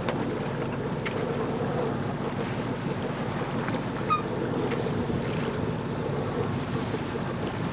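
Wind buffeting the microphone over the rush of water along the hull of a sailboat under way, a steady noisy wash. A brief faint squeak is heard about four seconds in.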